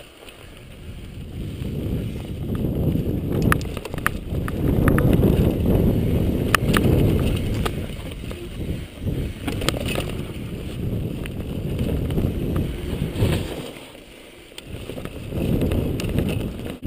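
Mountain bike riding fast down dirt singletrack: tyres rumbling over the trail and wind buffeting the microphone, the noise rising and falling with scattered sharp clicks and rattles over bumps, dipping for a moment near the end.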